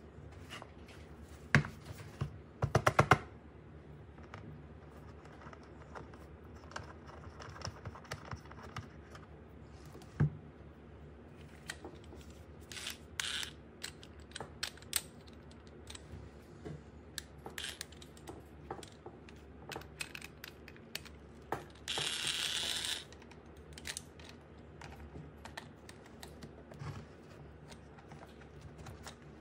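Plastic puzzle-toy pieces being handled and fitted together: scattered sharp clicks and taps, with a quick run of clicks about three seconds in. A rustling scrape lasts about a second near the twenty-two-second mark.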